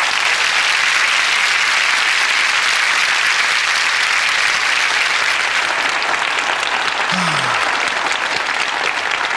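Audience applauding, a dense, steady wash of clapping that eases slightly near the end. One voice briefly calls out about seven seconds in.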